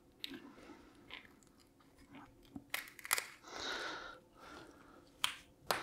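Printed plastic support material being broken off a 3D-printed part: several sharp snaps and cracks, with a crunching scrape of plastic about midway.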